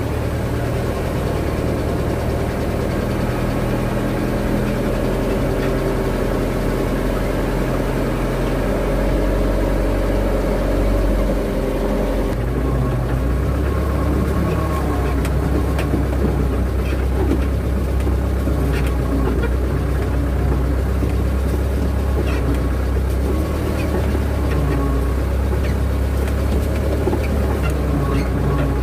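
Motor vehicle engine running steadily while driving along a rough country road. Its note changes about twelve seconds in, and light knocks and rattles come here and there after that.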